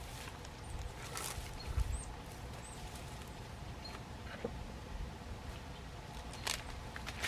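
Outdoor ambience with a steady low rumble, a few brief scuffs and knocks of work spaced through it, and several faint, very short high chirps like a small bird's.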